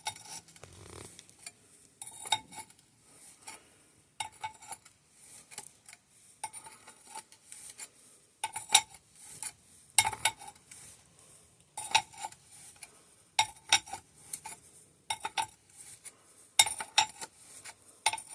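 Metal fork parts clinking and clattering in short repeated bursts, about one every one and a half to two seconds, each with a brief ringing tone, as a RockShox SID suspension fork is worked to drain its oil.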